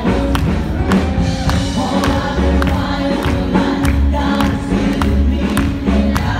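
Upbeat gospel-style worship music: a choir singing over a steady beat, with the congregation clapping along.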